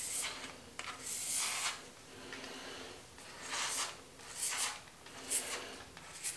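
Multi-blade cartridge razor scraping over a lathered scalp in a series of short strokes, about one a second, each a raspy scratch as the blades cut the stubble.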